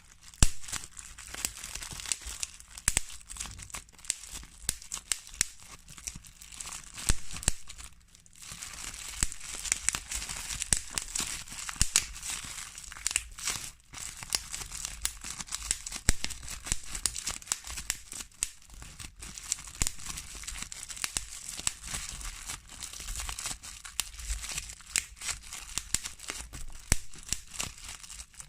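Plastic bubble wrap being popped: many sharp, irregular pops over the crinkling of the plastic sheet, with brief pauses about eight and fourteen seconds in.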